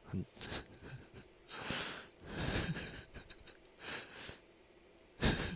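A man laughing quietly under his breath, in about six short breathy bursts of exhaled laughter.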